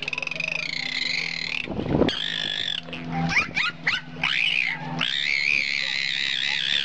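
Bottlenose dolphin whistling with its head out of the water: a warbling, wavering whistle at the start and again from about five seconds in, with quick rising squeaks in between. A brief thump about two seconds in.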